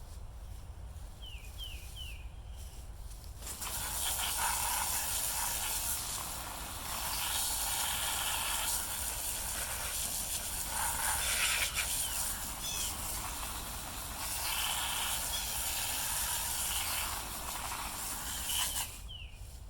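Water spraying from a hose-fed blaster nozzle onto the chainsaw, a hissing rush that comes on a few seconds in, swells and dips as the spray moves, and drops away near the end. A bird chirps a few times at the start and again near the end.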